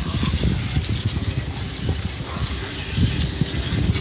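Pressure washer spraying water onto a car frame to blast out dirt: a steady hiss with crackling spatter.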